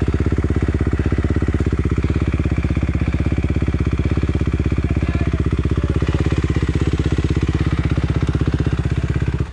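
Enduro dirt bike engine idling steadily close to the microphone, with an even, rapid pulse. It cuts off abruptly at the very end.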